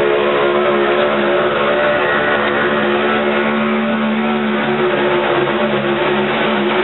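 An engine running at a steady speed, a constant droning hum that grows a little stronger in the middle.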